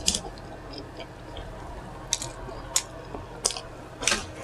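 Close-miked chewing of a burger: wet mouth smacks and squishes, several separate sharp clicks with pauses between them, the loudest near the end.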